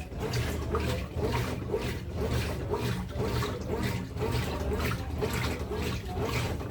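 Consul CWH14 14 kg washing machine agitating a load: water sloshing in an even rhythm of about two strokes a second over a steady motor hum.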